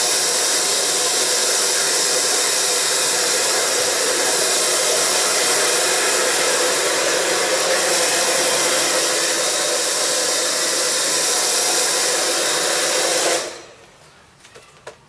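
Handheld hair dryer blowing steadily, then switched off abruptly near the end, followed by a few faint clicks.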